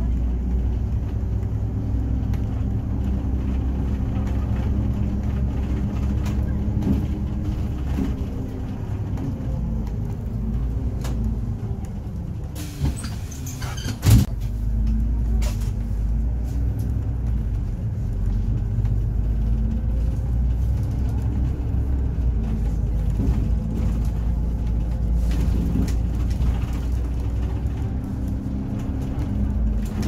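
City bus engine and drive noise heard from inside the cabin, a steady low rumble whose pitch shifts as the bus speeds up and slows in traffic. Two sharp knocks come about thirteen and fourteen seconds in, the second the loudest sound.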